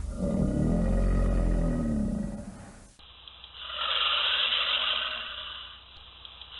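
Alligator giving a deep, rumbling growling bellow for about three seconds. It then cuts abruptly to a higher, hissing sound that swells and fades.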